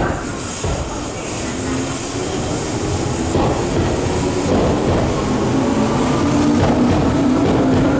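Tobu Skytree Line electric train running on the track, wheels knocking over rail joints now and then, with a motor whine that rises slowly in pitch and grows louder as the train gains speed.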